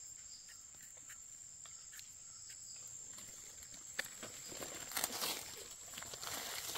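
A steady, high-pitched insect drone runs under light, scattered ticks. From about four seconds in, dry leaf litter rustles and crackles, growing louder near the end.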